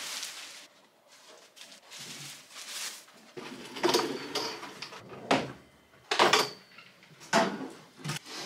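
A plastic tablecloth rustling for a moment, then classroom stacking chairs being moved about: several separate knocks and scrapes of chair legs on the floor and against desks, some with a short squeak.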